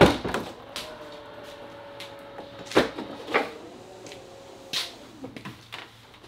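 BMW X5 power tailgate unlatching with a sharp click, then its lift motor giving a steady whine for about four seconds as the tailgate rises. The whine stops about five seconds in, with a few light knocks along the way.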